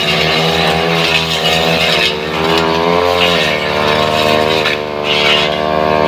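Two-stroke brush cutter running at high revs, its pitch sagging and recovering a few times as the blade bites into wood, with bursts of cutting noise.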